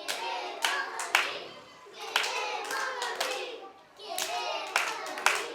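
Voices chanting "¡Queremos dormir!" three times in unison, each chant punctuated by sharp hand claps.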